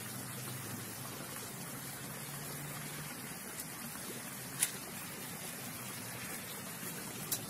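Steady hiss of outdoor background noise, with a faint low hum during the first three seconds and two short sharp clicks, one a little past the middle and one near the end.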